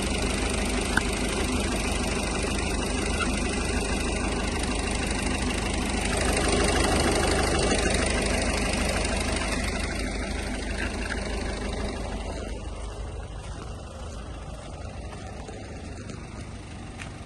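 Peugeot 308 1.6 HDi four-cylinder turbodiesel running at idle. It swells a little about halfway through, then grows gradually fainter over the last few seconds.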